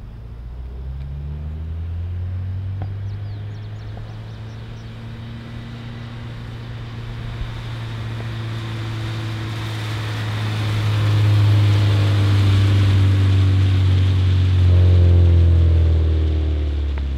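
Car engine running steadily, growing louder from about ten seconds in, its pitch rising near the end as it accelerates.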